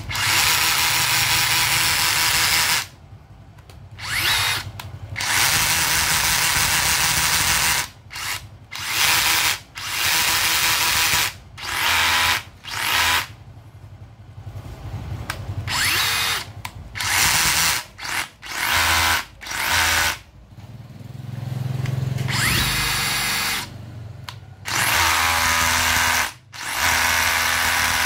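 DeWalt DCH172 20V brushless compact SDS rotary hammer run unloaded in a series of trigger pulls, about a dozen runs of half a second to three seconds each, stopping and starting again.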